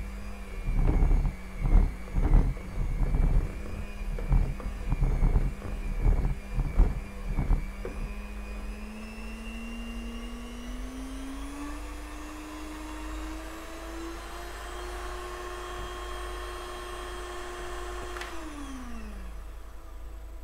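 Electric hand mixer whirring as it beats sponge cake batter in a plastic bowl, with irregular knocks for the first several seconds. The motor's pitch then rises and holds, and about eighteen seconds in it is switched off with a click and winds down.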